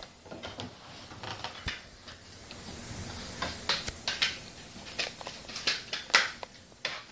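Handling noise from a hand-held camera phone: irregular clicks and knocks, several a second, over a faint steady hiss.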